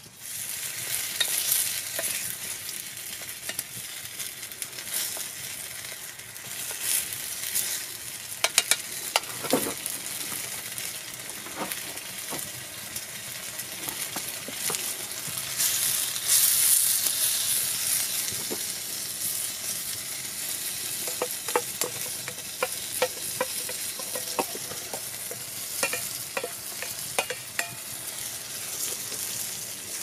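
Mushroom and tomato stew frying in a pan over a campfire: a steady sizzle that grows louder about halfway through as more food is tipped into the hot pan, with scattered clicks and taps.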